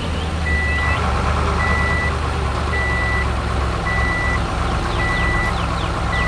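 Truck reversing alarm beeping, about one steady high beep a second, over a low engine rumble.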